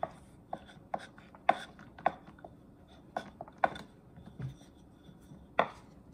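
Wooden rolling pin working a small clay slab on a wooden board: a string of sharp, irregular wooden knocks and clicks, about ten in all, the loudest about one and a half, three and a half and five and a half seconds in.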